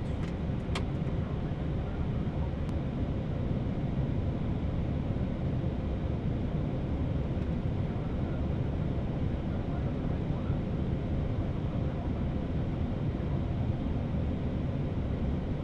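Steady low rumble of cockpit noise in an Airbus A319 rolling slowly after landing, engines at idle; a faint click about a second in.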